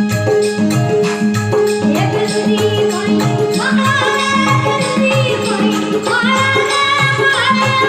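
Rajasthani devotional song in praise of the guru: instrumental accompaniment over a steady, repeating drum beat with rattling percussion. A child's high singing voice enters about halfway through.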